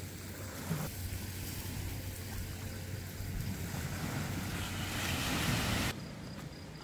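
Sea surf washing on the shore with wind, the wash swelling, then cutting off suddenly about six seconds in.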